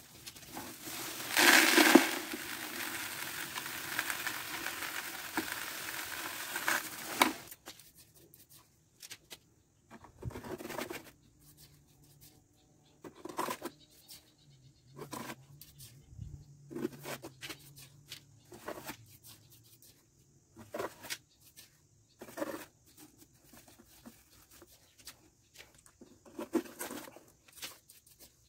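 Dry cement mix pouring from a sack into a plastic bucket for about seven seconds, then a trowel scraping and scooping through the mix in the bucket in short strokes every second or two.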